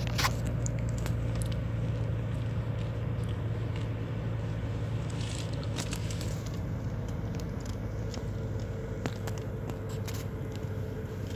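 Steady low rumble of a moving car heard from inside the cabin, with a few small clicks and knocks scattered through it.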